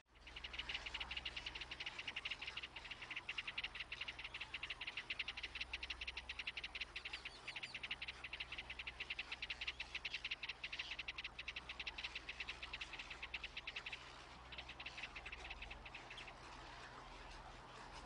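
Insects trilling in a steady chorus: a fast, even pulsing buzz that weakens about fourteen seconds in, over a low steady hum.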